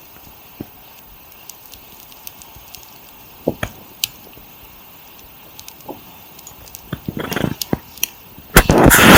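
Campfire of dry dwarf birch crackling, with scattered sharp pops and a denser run of crackles about seven seconds in. Near the end a loud rushing noise takes over.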